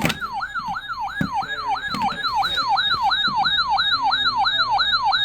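Electronic yelp siren: a clean siren tone whose pitch jumps up and slides down, repeating about three times a second.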